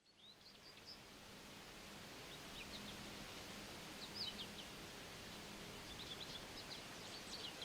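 Birds chirping faintly over a steady low background hiss: short, high chirps come in small clusters and grow busier near the end. The sound fades in at the very start.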